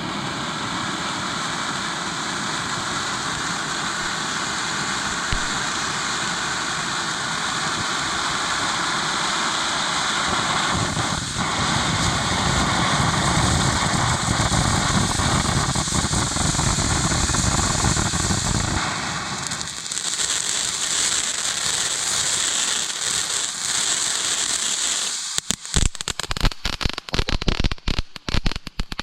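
Firework fountain burning with a steady, loud hissing spray. About two-thirds of the way through, the hiss thins to a higher pitch. In the last few seconds it breaks into rapid sharp crackles.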